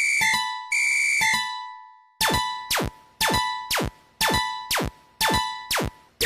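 Railroad crossing warning bells. A held electronic ding repeats about twice a second, stops after about a second and a half, and after a short gap a struck, ringing bell tone takes over at about two strikes a second.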